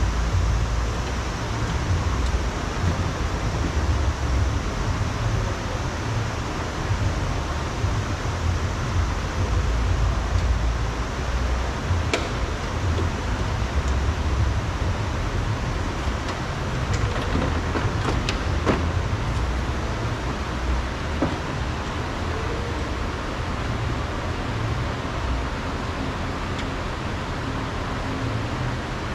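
Low, gusting rumble of wind on the microphone over a steady hiss, with a few faint clicks about twelve and eighteen seconds in from work on a car door.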